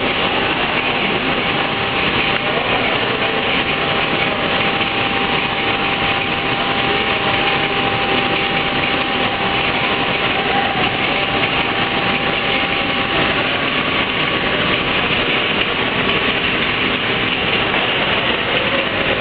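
Automatic roti-making production line running: a steady, even machine noise from its motors and conveyors, with a faint steady whine that stops about two-thirds of the way through.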